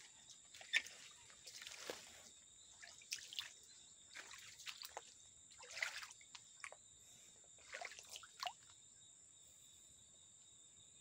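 Faint, irregular small splashes and drips in a shallow stream, under a steady high whine; the splashing stops about eight and a half seconds in.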